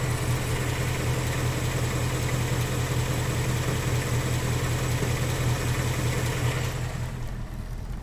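A 2018 Ford Mustang GT's 5.0-litre Gen 3 Coyote V8 idling steadily, heard from beneath the car near the plastic oil pan and bell housing. This is where the intermittent 'typewriter' or 'barbecue' tick comes from, which a former Ford technician says is harmless.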